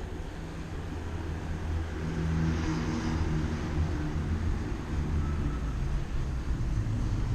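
City street traffic: a motor vehicle's engine humming close by and growing louder, with a rush of passing noise about two to three seconds in.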